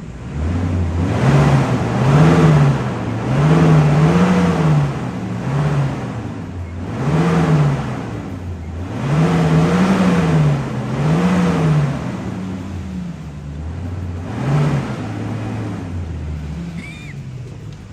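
Safari vehicle's engine revving, its pitch rising and falling again and again as the throttle is worked in short pulls while it backs away.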